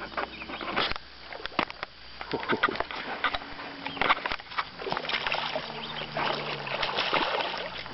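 Water splashing with scattered sharp clicks and knocks in a small fishing boat as a bass hooked on a topwater bait is played in, over a faint steady low hum.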